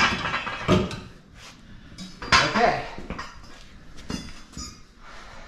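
Steel roll-bar tubing clanking and knocking as it is handled and moved, with a few sharp metal knocks.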